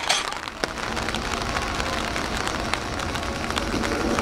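Steady rain falling, with scattered sharp clicks. Near the end, the running noise of an electric train starts to rise.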